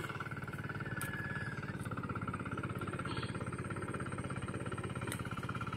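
A small engine running steadily, with a fast, even pulsing throb.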